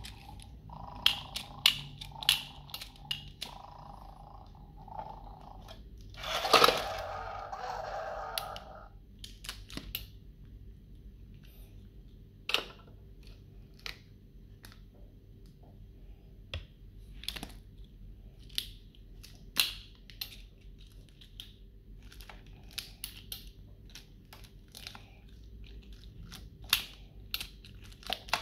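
Plastic toy grabber claw clicking and a chocolate bar wrapper crinkling as the bar is dragged, in a scattered run of sharp clicks, with a louder crackling rustle about six seconds in that lasts two or three seconds.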